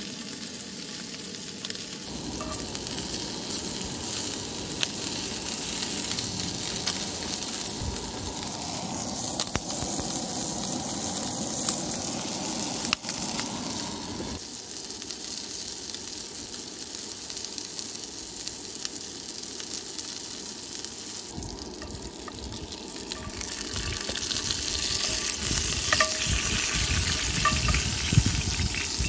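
Breakfast sausage links sizzling in a hot cast-iron skillet: a steady frying hiss with scattered small pops of spattering fat. It grows louder over the last few seconds.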